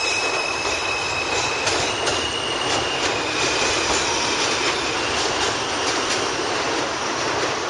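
New York City subway train pulling out and running along the rails, a steady rumble with high wheel squeal in the first few seconds that then fades, and scattered clicks of wheels over rail joints.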